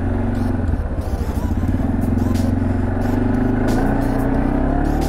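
CFMOTO four-wheeler's engine running under way, its pitch climbing about three quarters of the way through as the revs rise.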